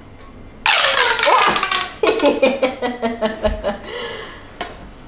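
Plastic pop tube fidget toy being stretched out, its corrugations giving a rapid run of clicking pops that starts suddenly under a second in, then a second, weaker run of pops.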